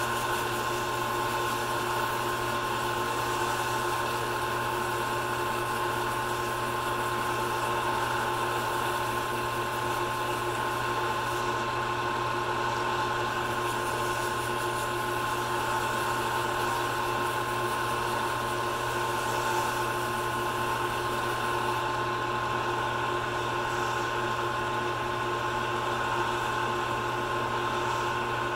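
Wood lathe running steadily, a motor hum with a steady whine, while an acrylic pen blank spins against wet 600-grit sandpaper, adding a light hiss that eases off twice.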